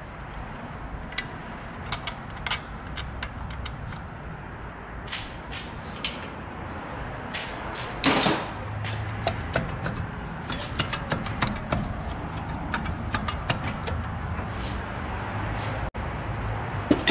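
Workshop noise: scattered light metallic clicks and knocks over a steady low hum. About eight seconds in there is a loud rushing burst lasting about half a second.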